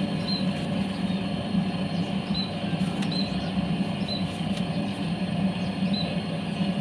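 Electric clipper-blade sharpening machine running steadily with a low hum as its flat grinding disc spins. Short, faint high chirps recur every second or so above it.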